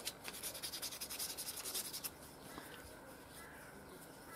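Sandpaper rubbed by hand back and forth over the outside of a white sheath tube in quick, even strokes, scuffing off its glossy surface. The sanding stops about two seconds in.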